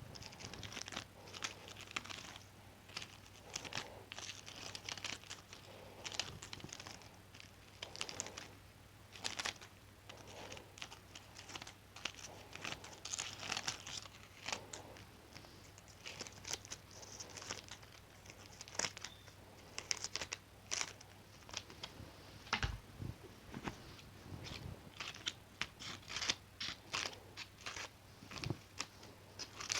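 Scissors snipping and cutting through material in quick, irregular strokes, with crinkling and rustling from the material being handled. There are two soft low thumps near the end.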